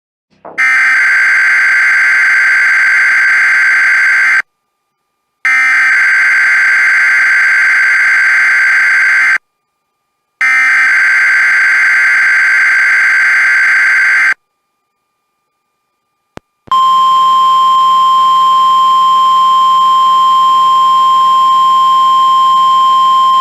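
NOAA Weather Radio weekly test signal: three bursts of harsh two-tone digital data (the SAME header codes), each about four seconds long with a second's gap between them. After a click, the steady single-pitch warning alarm tone begins about 17 seconds in and holds to the end.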